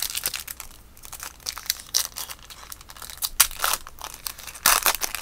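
Plastic wrapper of a baseball card pack being crinkled and torn open, a run of quick crackles with the loudest burst near the end.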